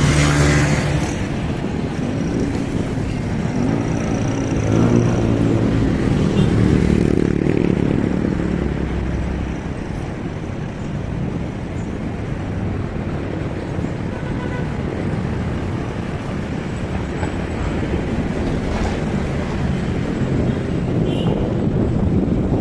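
Road traffic: motor vehicle engines running close by, with a steady rush of noise, the engine hum strongest in the first half.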